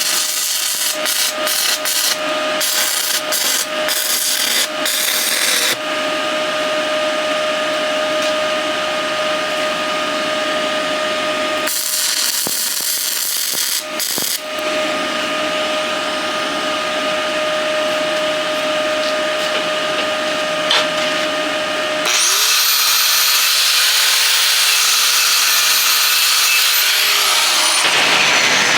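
Stick-welding arc crackling and sizzling as an electrode burns along the steel plate's edge, over a steady electrical hum. About 22 seconds in, a different sound starts suddenly: a high-pitched steady whine over a hiss.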